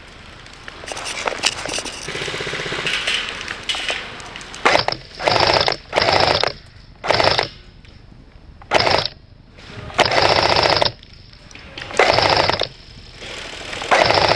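Airsoft electric gun firing full-auto in repeated short bursts, about eight rattling bursts of under a second each, starting about a third of the way in. Before them comes a stretch of rougher, scuffling noise.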